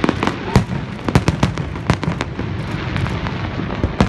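Fireworks display: a dense run of sharp bangs and cracks from exploding aerial shells over a continuous crackle, with several louder booms about half a second in, around a second and a half in, and near the end.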